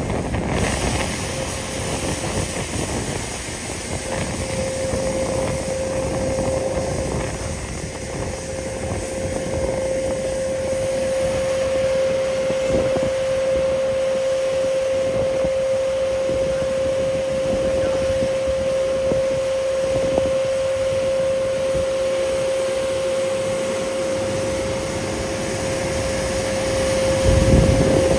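Stock Sweepers S8400 road sweeper on a Volvo FM truck working: a steady high whine over a rushing, rumbling noise, swelling briefly near the end as the sweeper comes close.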